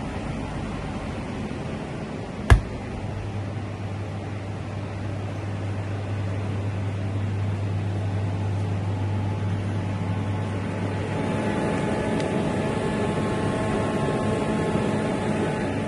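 Refrigeration unit running with a steady fan whir. About two and a half seconds in there is a sharp click, and a steady low hum sets in right after it, as when a compressor switches on. Faint steady whining tones join later.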